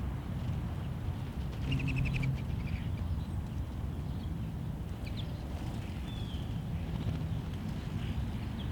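Small backyard birds calling: a quick run of about six high notes about two seconds in, then a few single short, downslurred calls, over a steady low rumble.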